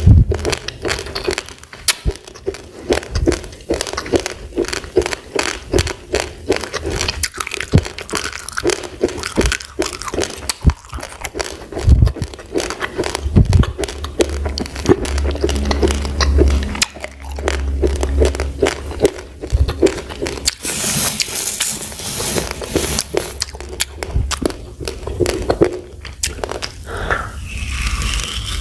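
Raw rice grains being chewed close to the microphone: a rapid, irregular run of sharp crunches and cracks as the hard grains break between the teeth.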